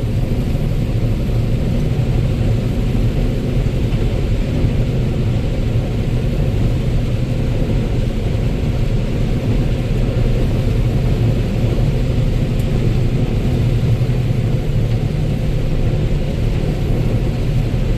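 Combine harvester running steadily while harvesting corn: a constant low engine hum with machinery noise over it.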